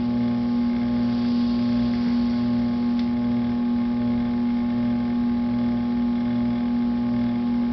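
Electric potter's wheel running: a steady motor hum with a soft low throb about once a second.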